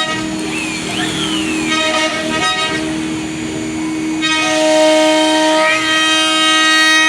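CNC wood router at work: a steady spindle tone under the whine of the stepper motors. The whine changes pitch in steps and short glides as the axes start, stop and change speed.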